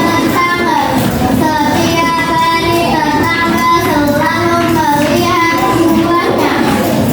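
A voice singing a melody with music behind it, held notes gliding up and down with no break.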